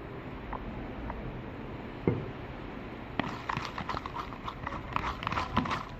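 Freshly formed slime being stirred with a spatula in a cup: one knock about two seconds in, then from about three seconds a quick, irregular run of small sticky clicks and taps.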